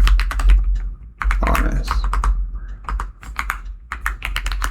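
Typing on a computer keyboard: a fast, uneven run of keystrokes.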